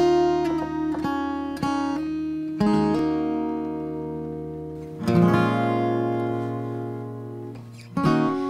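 Acoustic guitar playing a song's introduction: picked notes and chords, with a fuller chord struck about five seconds in and left to ring and fade, then another chord near the end.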